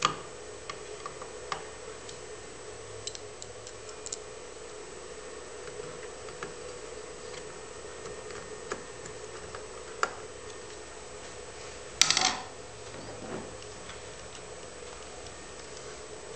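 Screwdriver driving small locking screws into a circuit board on an aluminium mounting plate: scattered light clicks and ticks of metal on metal, with a louder clatter about twelve seconds in, over a steady hum.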